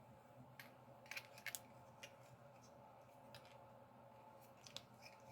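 Faint, scattered plastic clicks and taps of a Beast Wars Cheetor action figure being handled, over a low steady hum.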